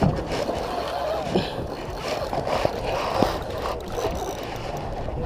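Water sloshing and lapping around a small boat, with light knocks and faint voices in the background.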